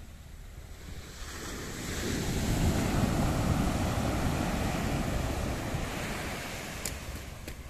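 Surf: a wave breaking and washing up the sand, swelling from about a second in and fading near the end, with wind on the microphone.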